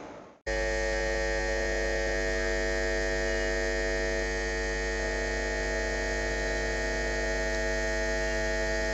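Steady electrical hum made of many held tones, with no rhythm or change in pitch, starting abruptly about half a second in.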